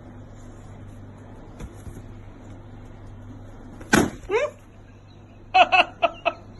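A clear confetti balloon pops with one sharp bang about four seconds in. A short cry falling in pitch follows at once, then a few quick high cries about a second and a half later.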